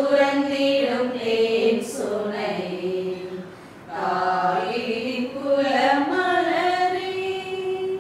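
Voices singing a hymn in two phrases with a short break about halfway, the last note held until the singing stops at the end.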